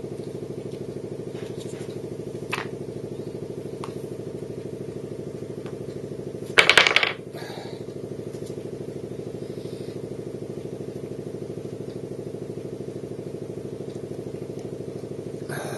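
Wooden blocks clattering out of a tipped cup onto a wooden table about six and a half seconds in, with a few lighter knocks of block and cup on the table before it and near the end. A steady machine hum runs underneath.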